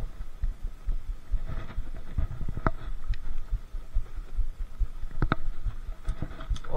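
Handling noise close to a body-worn action camera: irregular dull low thumps and rustling, with a few sharp clicks as a plastic fish lip grip is worked.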